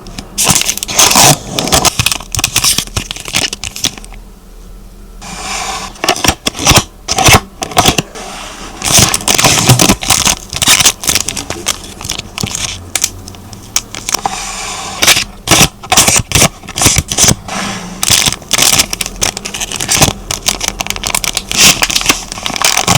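Hands rustling and crinkling packaging while packing collectible photo cards: a dense run of sharp crackles and scrapes, with a short lull about four seconds in.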